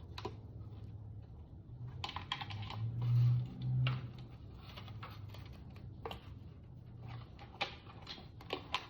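Hands opening and handling a small package of helmet accessories: a run of light clicks and rustles, with two dull low thumps about three seconds in.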